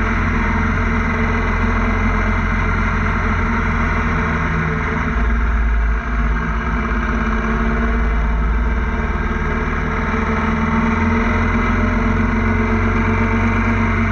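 Motorcycle engine running at a steady road speed with wind rushing over the on-board camera, heard from the moving bike; the sound dips briefly about six seconds in.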